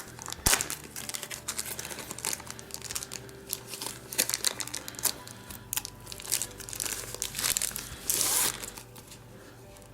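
Plastic wrapping crinkling and rustling, with scattered clicks and taps, as the board game's cardboard counter sheets are unwrapped and handled; a louder, longer crinkle comes about eight seconds in.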